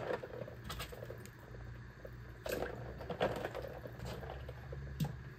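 Scattered light clinks and taps as raw catfish pieces are handled and dropped into a plastic bowl of ice water, several separate strokes with the sharpest about five seconds in.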